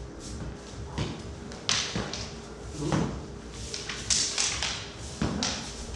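Swords and daggers clashing in a fencing bout, mixed with footfalls on a hard floor: a handful of separate sharp clacks and thuds, the loudest a little past the middle.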